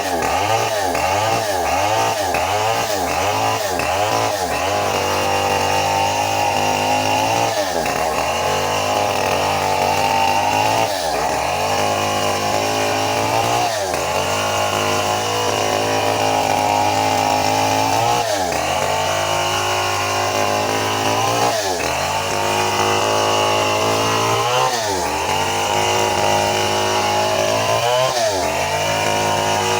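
Stihl 070 two-stroke chainsaw running flat out while ripping a very old teak log lengthwise. Its pitch dips briefly several times in quick succession over the first few seconds, then about every three seconds.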